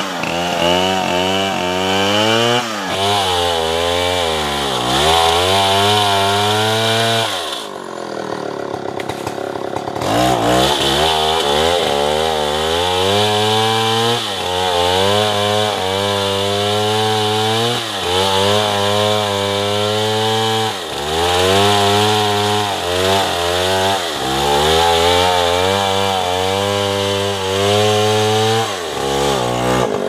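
Large two-stroke chainsaw sawing through a thick tree trunk under heavy load, its engine pitch sagging and recovering every couple of seconds as the chain bites. About eight seconds in the engine drops off briefly, then revs back up into the cut.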